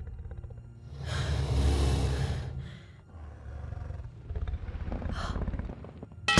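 A dragon roars: one long, loud, deep roar about a second in, followed by lower rumbling. A sharp crash comes right at the end.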